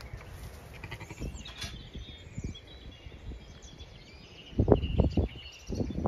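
Strong storm wind gusting and buffeting the microphone in hard bursts from about two-thirds of the way in, with small birds chirping through it. Before the gusts it is quieter, with a faint sheep bleat from the pen.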